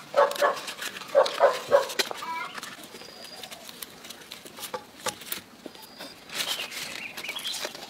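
Short animal calls, several in quick succession in the first two seconds and a higher call near the end, over the light crackle of dry bamboo leaves being folded.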